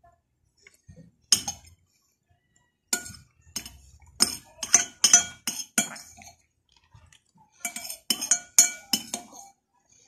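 Metal spoon and fork clinking against a white bowl while eating. There is one sharp clink about a second in, a quick run of clinks from about three to six seconds, and another run near the end.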